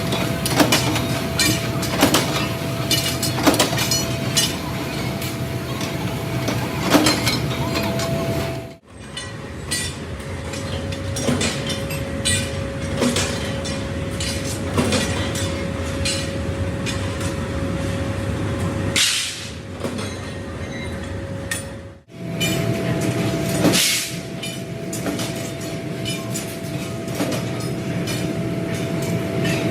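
Factory machinery running in leaf spring production: a steady hum with a tone throughout and scattered metallic knocks and clanks. The sound changes abruptly twice, about nine seconds in and about twenty-two seconds in, each time with a slightly different pitch of hum.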